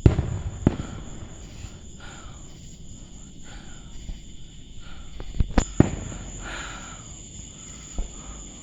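Aerial fireworks going off: a loud boom with a rumbling tail at the start, a second thump under a second later, then three quick sharp cracks about five and a half seconds in and a smaller pop near the end. Insects chirp steadily underneath.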